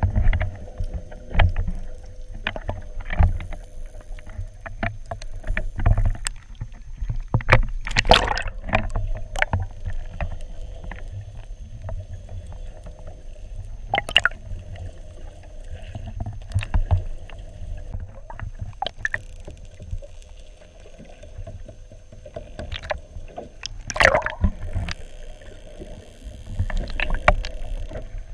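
Underwater sound beside a boat hull: a low rumble of moving water with many scattered sharp clicks, which include a porpoise's echolocation clicks as it hunts fish. A few louder knocks or splashes come about a third of the way in and again near the end, over a faint steady hum.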